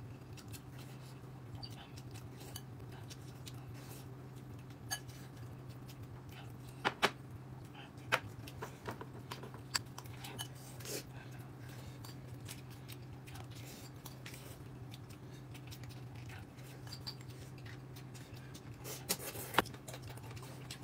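Scattered light clicks and clinks of eating utensils against bowls and dishes during a meal, a few of them grouped near the end, over a steady low hum.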